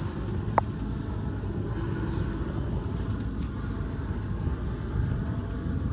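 Steady low rumble of boat motors on the water, with wind on the microphone. A brief high chirp sounds less than a second in.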